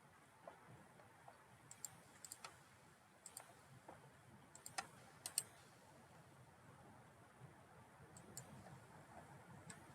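Faint, scattered computer mouse clicks, in small clusters through the first half and a couple near the end, over a quiet room hum.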